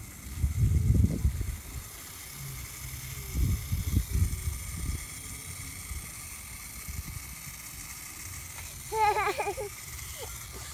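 Water spraying from a pistol-grip garden hose nozzle onto grass, a faint steady hiss, broken in the first half by low rumbling bumps on the microphone. About nine seconds in, a small child makes a short wavering vocal sound.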